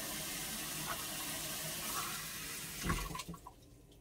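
Kitchen tap running as water is measured out into a cup. Near the end there is a short knock and the flow stops.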